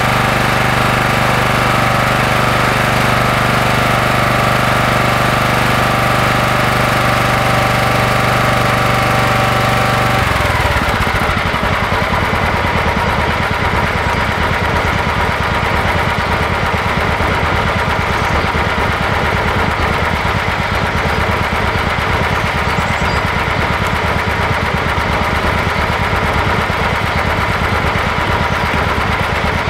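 A John Deere 180 lawn tractor's engine running just after a cold start. It holds a steady fast speed, then about ten seconds in its pitch falls and it settles into a lower, steady run.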